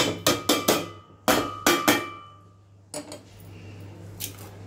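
A small metal pan knocking against the rim of a stainless steel mixer-grinder jar to tap out roasted coconut powder. Each knock rings briefly; there are two quick runs of three or four knocks, then a couple of fainter ones.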